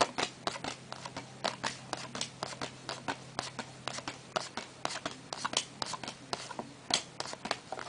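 Trading cards being handled and flipped through by hand: an irregular run of light card clicks and snaps, several a second.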